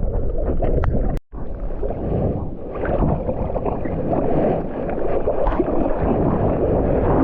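Seawater sloshing and rushing against a GoPro's housing in the surf, with heavy low rumble. The sound cuts out for an instant about a second in.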